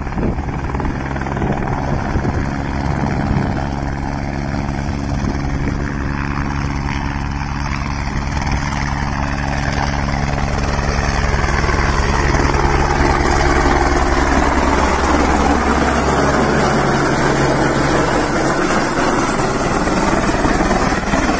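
Helicopter's rotor and engine running steadily in low flight, a low beating hum, growing a little louder about halfway through as it comes closer, with a slow downward-sweeping whoosh in the second half.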